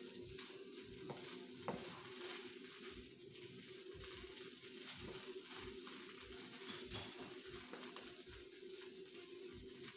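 Turmeric rice vermicelli sizzling in a frying pan as it is stir-fried with two wooden spatulas. Light taps and scrapes of the spatulas on the pan come over a steady hiss, with a steady hum underneath.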